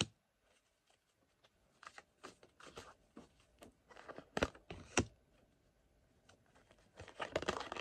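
A tarot deck being shuffled by hand: scattered soft clicks and flicks of cards, with a denser run of shuffling near the end.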